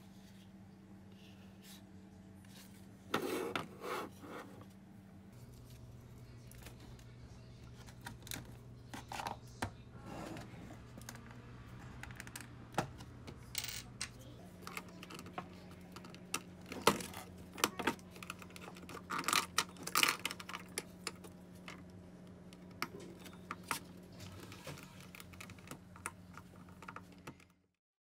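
Small electric motor of a Lego boat humming steadily, dropping to a lower pitch about five seconds in and rising again about halfway through, as if switched between speed steps. Sharp plastic clicks and rattles come over it, loudest a few seconds in and again in the second half, before everything cuts off near the end.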